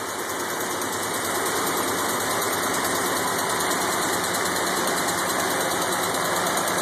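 Willys F-head four-cylinder engine of an M38A1 Jeep idling steadily, running on fuel drawn from its own gas tank.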